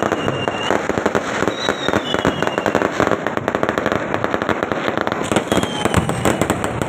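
Fireworks display: a dense, unbroken string of firecracker bangs and crackles, many a second, with a few brief high whistles over them.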